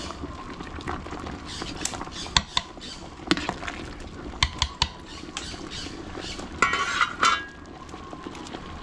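Metal spoon stirring a large aluminium cooking pot, clinking and knocking against its side several times, with a brief, louder grating sound about seven seconds in.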